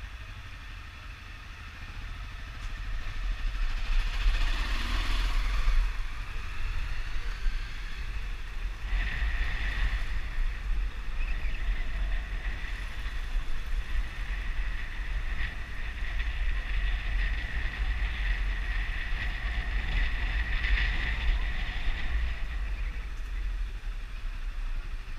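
Honda 250 motorcycle on the move, its engine running under heavy wind rumble on the microphone, with a steady high whine through the middle stretch.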